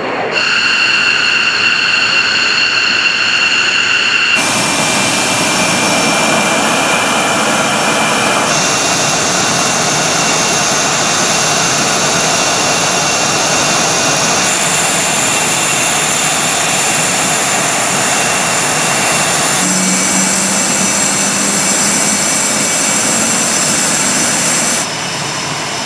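F/A-18 Hornet jet engines running on the flight line: a steady rush with high turbine whine. The whine tones and balance change abruptly several times.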